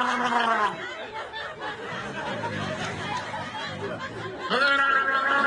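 A person snoring: a long, rattling, pitched snore trails off with a falling pitch about half a second in. A few quieter seconds follow, with soft snickering. Near the end a new snore starts, rising in pitch.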